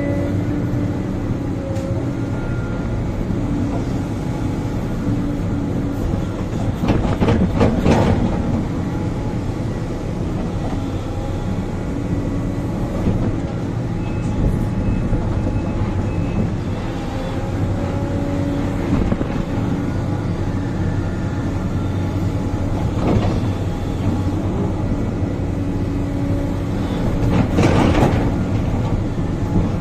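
Diesel engine of a Sumitomo 490 excavator running steadily, heard from inside its cab, as the bucket digs. The bucket scrapes and clatters loudly against soil and rubble about seven seconds in, again more faintly near 23 seconds, and loudly near the end.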